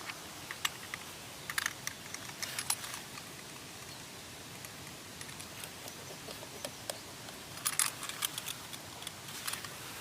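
Scattered clusters of short, sharp crackles and rustles over a steady hiss: dry forest-floor litter being disturbed.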